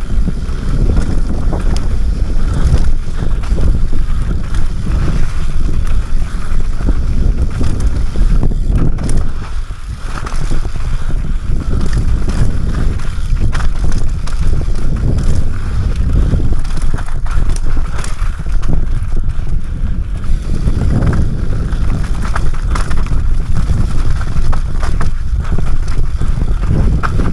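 Mountain bike descending a rough dirt trail, heard from a helmet-mounted action camera: wind buffeting the microphone over a constant rumble of tyres on dirt and rock, with frequent knocks and rattles from the bike over bumps.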